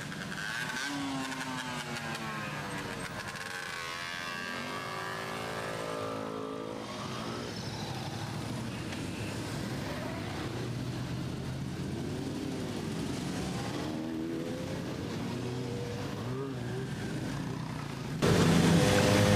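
A procession of motorcycles and scooters riding past one after another, their engines rising and falling in pitch as each rides by and revs. The sound gets suddenly louder near the end.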